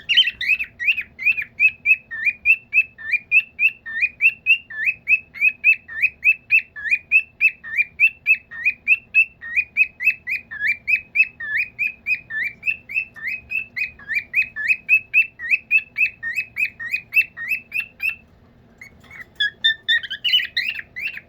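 Pet bird chirping in a fast, steady series of short rising notes, about four a second. It breaks off about 18 seconds in, and a few more chirps follow near the end.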